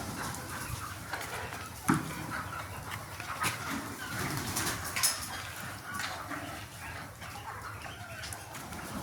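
A flock of Sonali chickens clucking and chirping, with a few sharp clicks. The loudest click comes about two seconds in.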